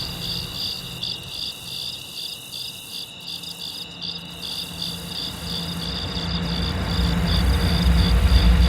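Crickets chirping: a steady, rapidly pulsed high-pitched trill. A low rumble builds under it over the last few seconds.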